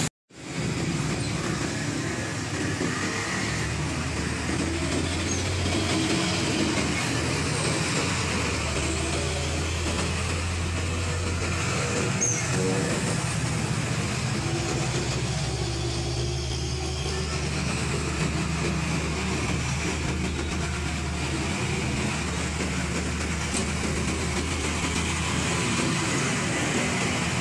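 Road traffic: heavy diesel trucks and motorcycles passing, a steady low engine drone over tyre and road noise, swelling as the bigger trucks go by. A brief gap of silence at the very start.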